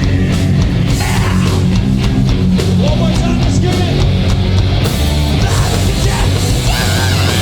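Hardcore punk band playing live: loud distorted guitars, bass and drums in an instrumental stretch, with cymbals crashing from about five seconds in and a few shouts near the end.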